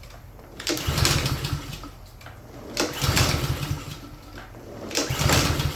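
Honda engine on a Craftsman self-propelled lawn mower pull-started three times, about two seconds apart. The recoil starter whirs and the engine turns over briefly each time without catching: it won't start.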